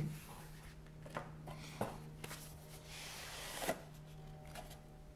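Cardboard packaging being handled: a few light knocks and a short rubbing slide as a box sleeve is pulled off its inner box, over a faint steady low hum.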